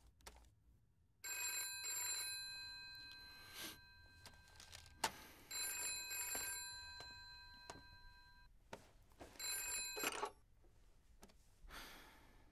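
Old-fashioned desk telephone bell ringing three times, each ring a steady, high metallic trill. The first two last about three seconds each, with a pause between. The third is cut off after about a second. A couple of sharp knocks fall between the rings.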